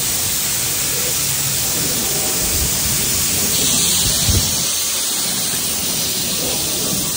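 Steady hiss of water spraying from a hose onto a foam-covered car, growing brighter about halfway through, with a couple of dull low thumps near the middle.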